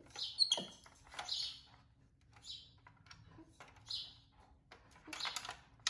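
Plastic stylus scratching in short strokes across a child's magnetic drawing board, about once a second. A brief high squeak comes just under half a second in.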